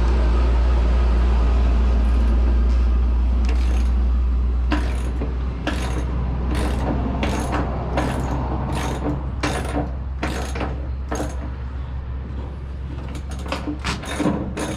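Hand ratchet wrench taking out bolts: a short burst of ratchet clicks with each stroke, about two a second, quickening near the end, over a steady low hum.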